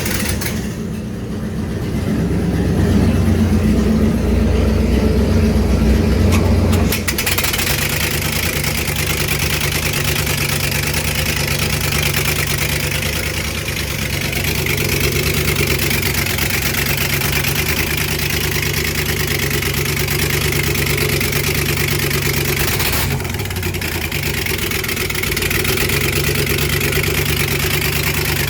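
Project boat's engine running steadily at idle. About seven seconds in the sound changes: the deep low rumble eases and a steady hiss joins the engine hum, dropping out briefly near the end.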